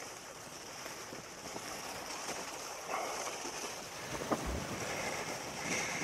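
Sea waves washing against the concrete blocks of a breakwater, with wind buffeting the microphone. There is a single short knock a little past the middle.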